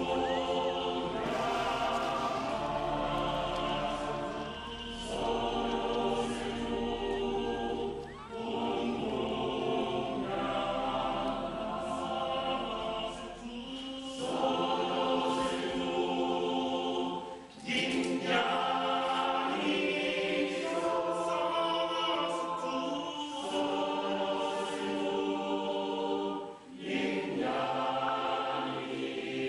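A choir singing in long, held phrases, with short breaks between them.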